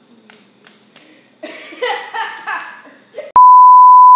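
Television colour-bars test tone: a single loud, steady, high-pitched beep that lasts about a second near the end, switching on and off abruptly.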